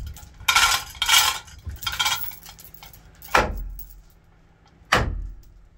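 Metal being struck while an old fishing boat's engine is dismantled: three loud, ringing metallic clanks in the first two seconds, then two sharp knocks about a second and a half apart.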